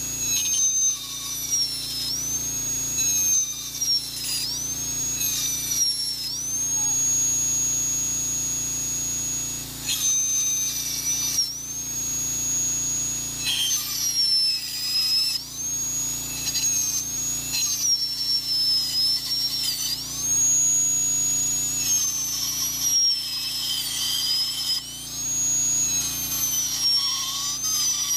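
A straight-shaft high-speed dental drill (about 400,000 RPM) with a #8 carbide round bur engraving stainless steel. It gives a high, steady whine that sags in pitch again and again as the bur bites into the metal, and climbs back when the load eases.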